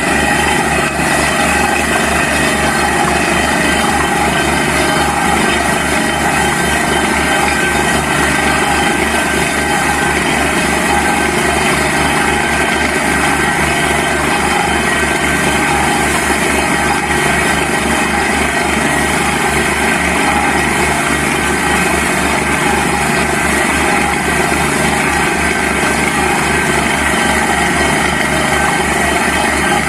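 Borewell drilling rig and its air compressor running steadily at full noise, with a fast, even pulsing low down.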